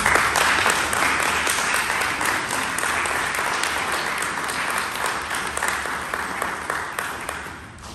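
A group of people clapping: steady, dense applause that dies away near the end.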